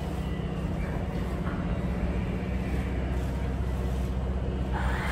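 Steady low hum of a Hankyu 1000-series electric train standing at a station platform. Near the end a tone starts and sweeps up, then begins to fall slowly.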